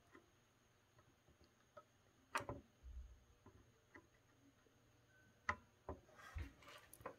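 Near silence with a few faint clicks and taps from soldering work on a circuit board, while a replacement electrolytic capacitor is soldered in. The loudest click comes about two and a half seconds in, and a short faint rustle comes near the end.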